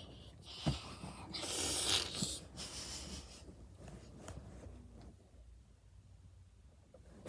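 Rustling movement noise close to the microphone, loudest for about a second and a half near two seconds in, with a small click before it, then fading to faint room tone.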